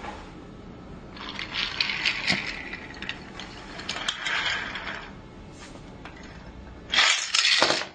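Plastic mechanism of a toy train set clattering and ratcheting in irregular bursts, with a short, louder, sharper burst near the end.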